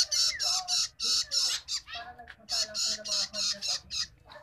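Young long-tailed shrike giving harsh, hissing begging calls in quick runs of about four or five a second while being fed, with a brief pause near the middle.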